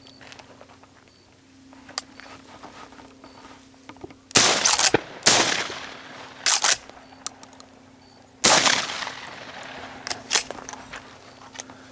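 Shotgun shots fired at doves in flight, each a sharp blast with a rolling echo. Two come about a second apart, and a third follows about three seconds later.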